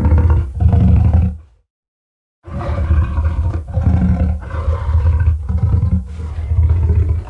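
Designed Carcharodontosaurus roar sound effect, layered from gorilla and elephant roars. One deep roar ends about a second and a half in; after a second's gap a second, longer roar starts, broken by several short dips.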